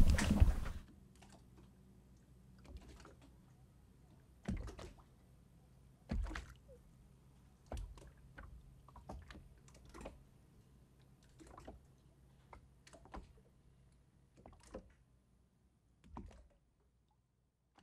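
A burst of noise that cuts off abruptly under a second in, then near silence broken by about a dozen faint, irregular clicks and taps.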